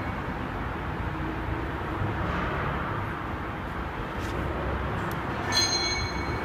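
Cholift QBA20B electric pallet truck driving, its drive motor and wheels making a steady rumble. About five and a half seconds in there is one short clack that rings briefly.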